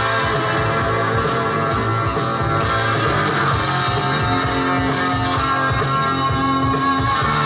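Rock music with guitar played from a vinyl LP on a Dual 1225 turntable, heard through an amplifier's speaker.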